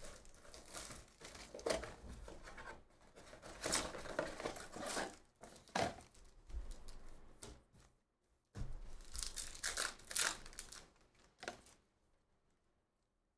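Box wrapping and foil card packs of Topps Chrome baseball cards being torn open and crumpled, crinkling and ripping in irregular bursts. It stops about two seconds before the end.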